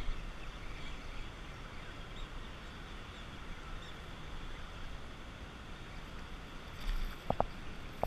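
Steady hum of road traffic passing close by, with a brief bump near the end.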